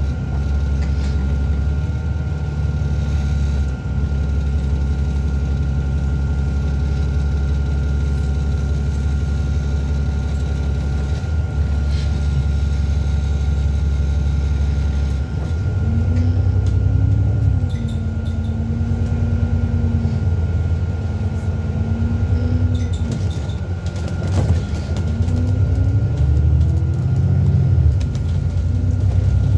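Alexander Dennis Enviro400MMC double-decker bus heard from inside: its engine runs low and steady, with a constant thin whine over it. About halfway through it gets louder as the bus pulls away, a whine climbing in pitch, holding, then dropping, and climbing again near the end as it gathers speed.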